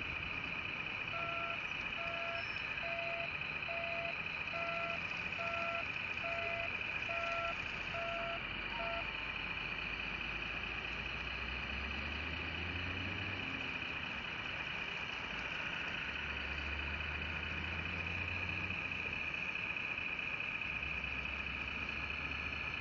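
The reversing beeper of an RC model CAT 963B track loader beeps about ten times, a little more than once a second, and stops about nine seconds in. A steady high-pitched whine runs underneath, and a low rumble comes and goes later on.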